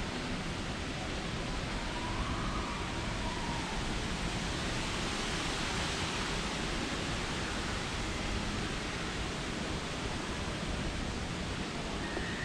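Steady, even rushing noise with no distinct events, and faint brief whistle-like tones near the start and near the end.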